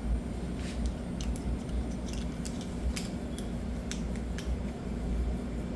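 Scattered small metallic clicks and taps as the parts of a pressure washer's unloader valve are worked and taken apart by hand, over a steady low hum.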